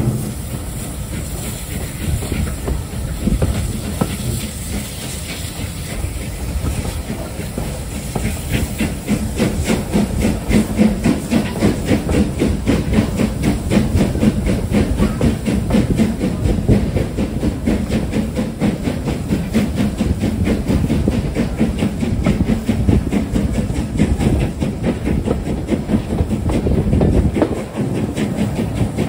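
Steam-hauled train under way, heard from an open carriage window: a steady rush of steam, exhaust and running gear. A fast, even beat grows clearer about a third of the way in.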